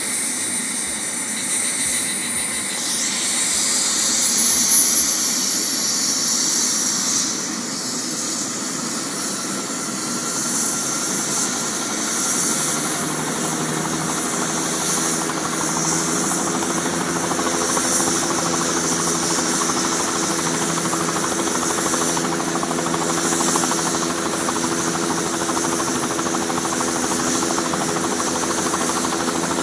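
Hospital helicopter running up for take-off: a high turbine whine climbs in pitch over the first dozen seconds, then a steady rotor hum with several even tones comes in about halfway and holds.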